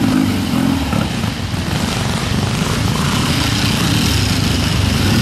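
Triumph twin-cylinder trials motorcycle engine running steadily as the bike is ridden up a rocky stream bed, with the rush and splash of the stream water.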